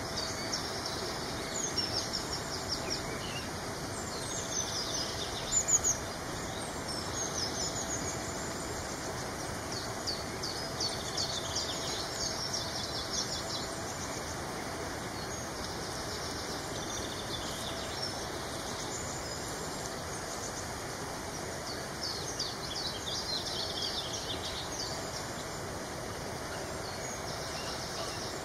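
Wild birdsong from several species: short high chirps and trilling phrases coming and going, with one louder call about six seconds in, over a steady background hiss.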